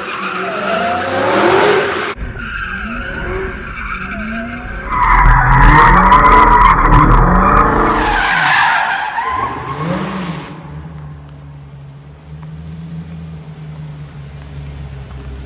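A car's tyres squealing with the engine revving, the loudest squeal about five to eight seconds in. It then settles to a steady engine drone.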